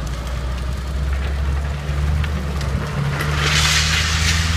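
Drift trike's hard rear wheels sliding sideways on the car park's concrete floor, a loud hissing scrape that starts about three seconds in and lasts just over a second. Under it runs a steady low rumble of the vehicle towing the trike on a cable.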